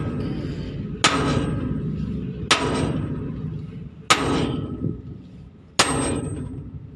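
Sledgehammer striking a steel drift punch to drive the kingpin out of a Hino truck's front steering knuckle: four ringing metal clangs about a second and a half apart, over a steady low rumble.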